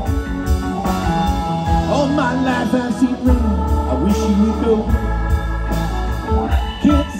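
Live band playing an instrumental passage: an organ-toned keyboard sustains chords over bass and drums, while a guitar plays gliding, bending notes.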